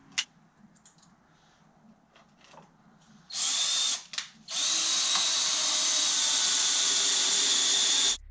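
Cordless drill driving long wood screws into a 2x4 frame. A short run about three seconds in, a couple of quick blips of the trigger, then a steady run of about three and a half seconds that stops suddenly near the end.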